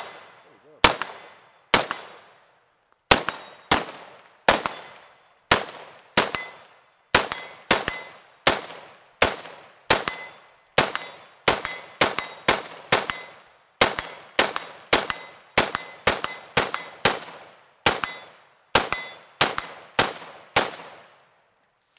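Lead Star Grunt III AR-15 rifle with a muzzle compensator fired semi-automatically, about thirty shots at an uneven pace of one to two a second, each shot a sharp crack with a short echoing tail. The shooting stops about a second before the end.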